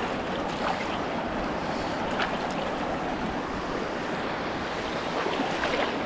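Shallow, fast-flowing river rushing over stones, a steady rush of water close to the microphone.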